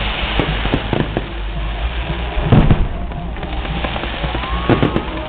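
Aerial fireworks bursting: a series of sharp bangs, the loudest about two and a half seconds in, with a quick cluster of bangs near the end.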